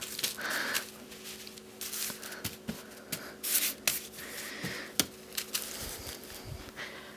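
Hands smoothing and pressing a cotton pressing cloth flat over layers of organza and stabilizer: soft, irregular fabric rustling and brushing with a few brief sharper scuffs.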